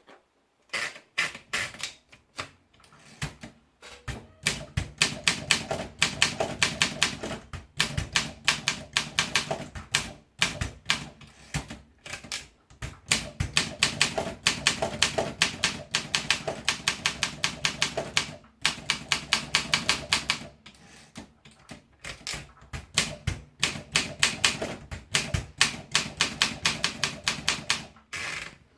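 Olympia SM3 manual portable typewriter being typed on: fast runs of crisp key strikes, several a second, broken by short pauses.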